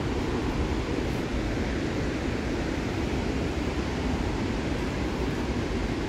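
Steady rushing roar of a tall waterfall (a 144 m drop) heard through the forest, an even noise without pauses.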